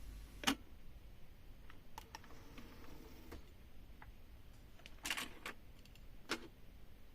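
A few sharp mechanical clicks and knocks from a cassette deck's controls or mechanism after the tape music stops: a loud click about half a second in, a small cluster about five seconds in, and another click shortly after, with faint ticks between.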